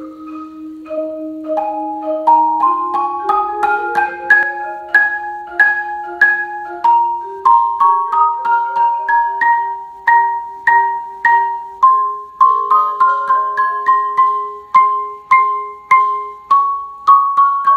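Marimba played with yarn mallets: an A-flat major scale exercise of accents and taps, with steady strokes stepping up and down the scale and regular louder accented notes among softer taps.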